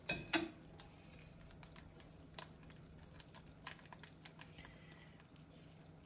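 Pan sauce simmering faintly in a frying pan, with scattered small pops and ticks, while a plastic packet of Dijon mustard is squeezed into it. A low steady hum runs underneath, and a short knock comes just after the start.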